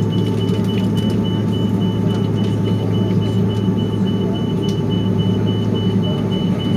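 Steady rumbling cabin noise inside an Airbus A330-200 as it moves on the ground with its engines running, under a constant low hum. A high-pitched electronic beep from the crew rest repeats evenly and rapidly throughout.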